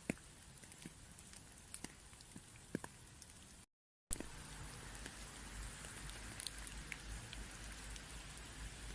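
Faint outdoor ambience with scattered small ticks and patters. It cuts out to silence for a moment a little under four seconds in, then comes back louder with a steady low rumble under it.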